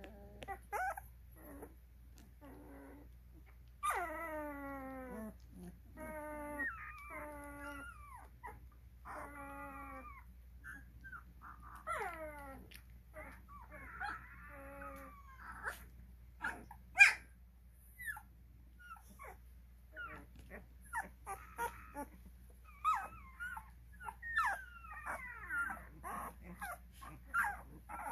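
Twelve-day-old Cane Corso puppies whimpering and squealing: many separate high cries, some drawn out and falling in pitch, with short squeaks coming thick and fast near the end. One sharp, short sound about halfway through is the loudest.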